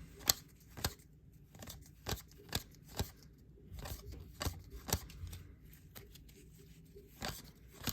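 2022 Topps Update baseball cards being flipped through by hand one after another: a string of short, sharp card snaps and slides at an irregular pace, roughly two a second.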